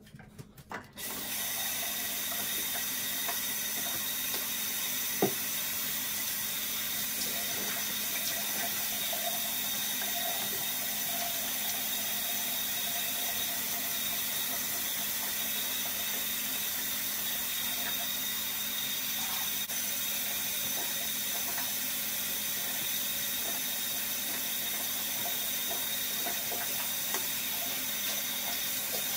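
Bathroom sink faucet turned on about a second in, then running steadily into the basin while a face is washed. There is one sharp knock about five seconds in.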